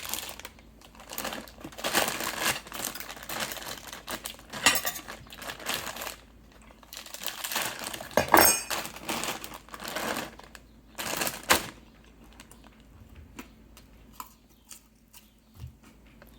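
Rustling of a bag of nuts with scraping and sharp clinks of a utensil on dishes, busy for about the first twelve seconds, then only a few faint clicks.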